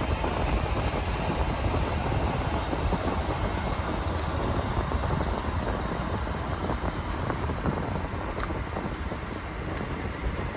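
Steady rumble of a moving vehicle: a dense, even noise weighted low, with no horn or whistle.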